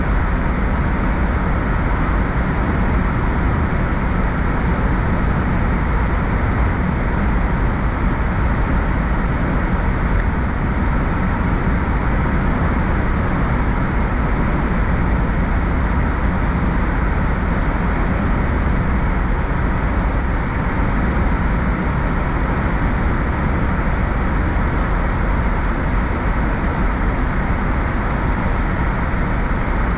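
Steady road noise of a car cruising at highway speed: tyres on the road surface with the engine running underneath, strongest in the low end and unchanging throughout.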